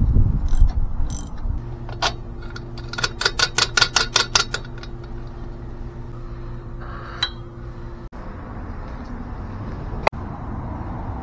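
Hand tools and metal parts being worked while assembling a cyclekart chassis: a quick run of about a dozen clicks a few seconds in, over a steady low hum, with a single sharp knock near the end.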